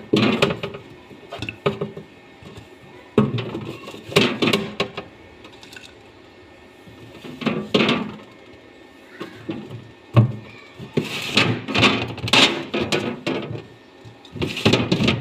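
Tomatoes and green chillies being picked out of a fridge's plastic vegetable drawer and set into a bowl: irregular knocks, thuds and rustling of handling, in several bunches.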